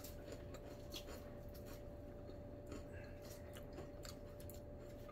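Quiet chewing with light, scattered clicks of a metal fork on a plate, over a faint steady hum.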